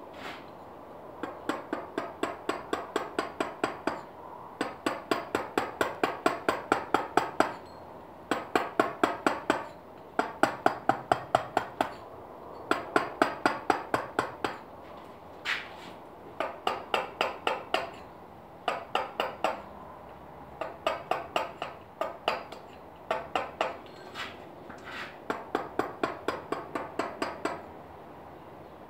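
A dummy mallet tapping a chisel into limestone, carving: quick, even blows about four or five a second, in runs of a few seconds with short pauses between.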